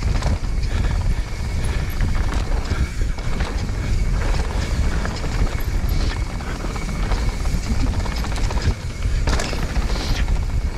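Mountain bike riding fast down a dirt flow trail, heard from a camera worn by the rider: wind rushing over the microphone and tyres rumbling on the dirt, with frequent short rattles and knocks from the bike over bumps.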